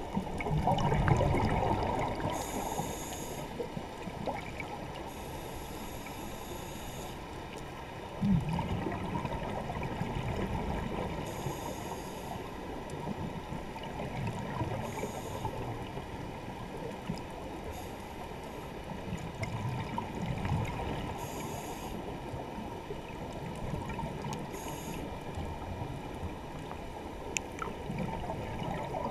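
Muffled underwater sound picked up by a submerged camera: a steady dull wash of water, with a short hiss recurring every few seconds and a single thump about eight seconds in.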